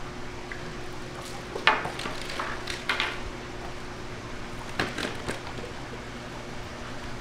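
Knocks and clatter as a landing net and a freshly caught large yellowtail (Japanese amberjack) are handled on a wet concrete floor: the net is set down and the fish is lowered into a plastic basket. The sharpest knock comes about two seconds in, with a few more a second later and again near the five-second mark, over a steady low hum.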